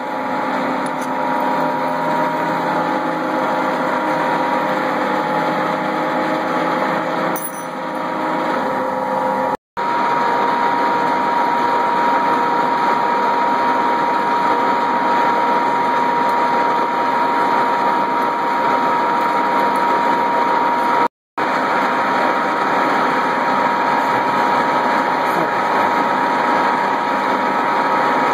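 Metal lathe running steadily, its gearing giving a constant whine over the machine noise. The sound cuts out briefly twice, and its pitch pattern shifts slightly after each break.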